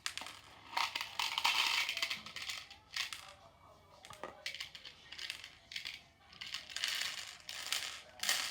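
Small plastic craft beads, including letter beads, clicking and rattling against each other in short bursts as they are handled and picked through.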